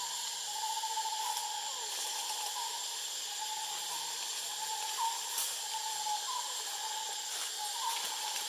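Forest ambience: a steady high hiss with a thin, unbroken whine, as of insects. Over it comes a run of short, clear calls, each about half a second long, some ending in a quick upward flick.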